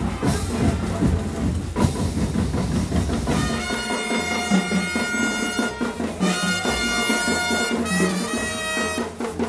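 Band music with brass and drums. About three and a half seconds in, the heavy drumming and low rumble drop away and clear, sustained brass notes carry the tune.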